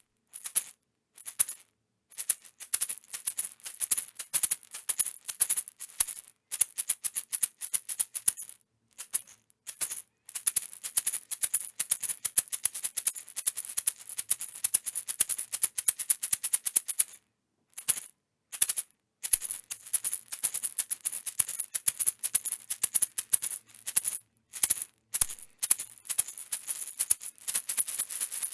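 Small maraca shaken in bursts of rapid bright rattling, with short pauses between runs and a longer break about two-thirds of the way through.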